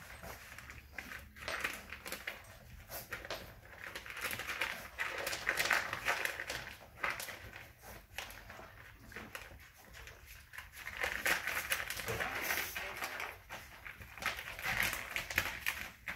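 Puppies eating dry kibble from metal food bowls and off the floor: irregular crunching, clicking and rattling.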